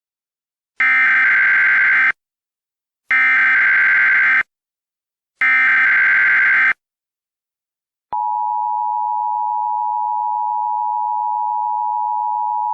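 Emergency Alert System SAME header: three identical bursts of buzzing digital data tones, each a little over a second long, about a second apart, followed by the steady two-tone EAS attention signal, the alert that precedes a voice message.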